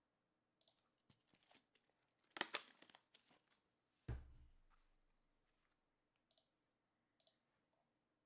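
A quiet room with scattered small clicks and desk-handling noises. There is a short burst of rustling noise about two and a half seconds in and a low thump with a short decay just after four seconds.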